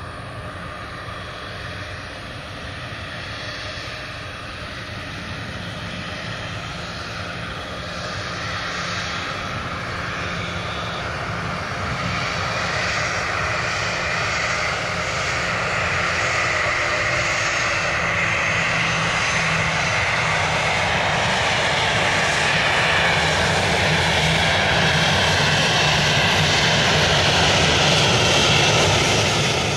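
Twin jet engines of an Airbus A330 airliner on final approach with its gear down, the jet noise growing steadily louder as the plane nears.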